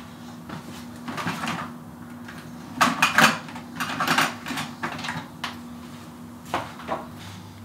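Items being handled and rummaged through on a wire shelf rack: a series of short clatters and knocks, loudest about three and four seconds in.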